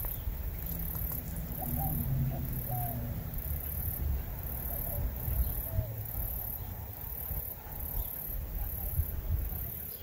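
High-pitched insect buzz pulsing on and off about every two-thirds of a second, over a low rumble, with a few faint chirps in the first half.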